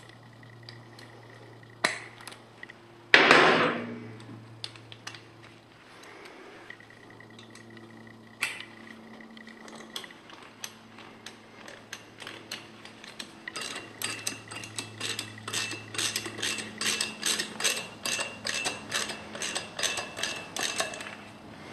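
Ratchet wrench clicking under a 1977 Honda CB750 as the oil filter housing bolt is undone: an even run of about three clicks a second through the second half. One loud clank about three seconds in.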